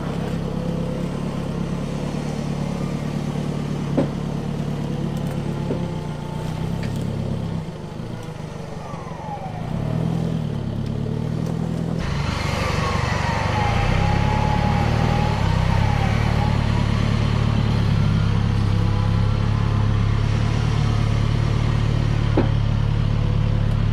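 Isuzu D-Max four-wheel drive's diesel engine running under load. About halfway through, the sound turns abruptly louder, and a whine slides down in pitch and then holds steady.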